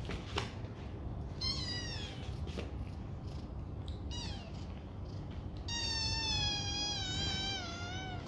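Kittens meowing: two short, falling meows, then one long, wavering meow of more than two seconds near the end. A single click comes near the start, and a low steady hum runs underneath.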